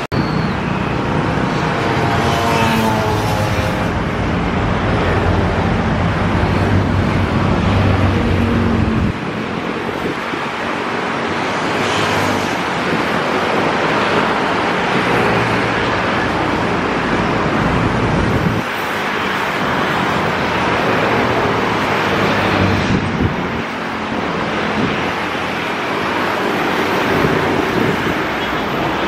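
Steady road traffic noise from passing motor vehicles. The sound changes abruptly about nine and eighteen seconds in.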